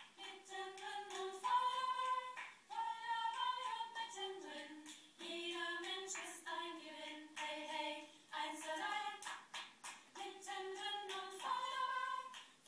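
A small group of mainly female voices singing a children's song a cappella, with short sharp claps keeping the beat.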